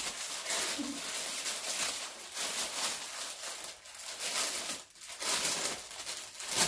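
Plastic mailer bag rustling and crinkling in the hands as it is pulled open, the noise coming and going unevenly.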